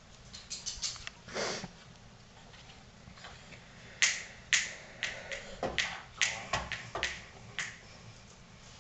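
A baby's hands slapping and patting a television set: a few light taps early on, then a quick run of a dozen or so sharp slaps from about four seconds in.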